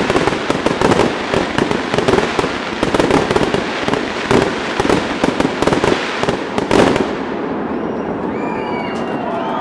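Festive fireworks salute: a dense barrage of rapid bangs and crackles that ends with one loud bang about seven seconds in. After it, the bangs stop and the voices and whistles of the watching crowd are heard.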